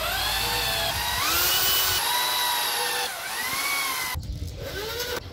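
Corded electric drill boring into a balau hardwood frame, its motor whine climbing and dipping with the trigger, then breaking into a few short spurts near the end.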